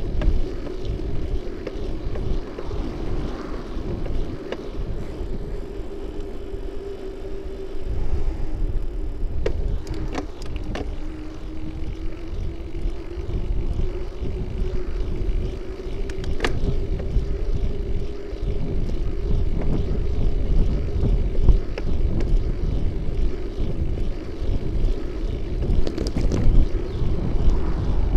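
Ride noise picked up by a camera mounted on a moving bicycle: low wind rumble on the microphone and road noise, with a steady hum that dips slightly in pitch partway through and then rises again. A few sharp clicks or rattles come over bumps, a cluster about ten seconds in and one more a few seconds later.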